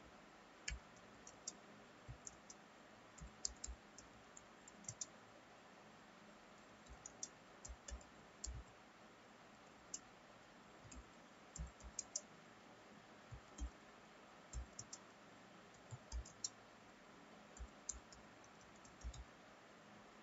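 Computer keyboard being typed on: sharp key clicks in uneven runs with short pauses, over a faint steady hiss.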